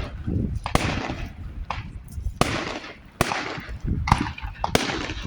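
Fireworks going off: a string of sharp bangs, about six in five seconds, each trailing off into a brief fading hiss.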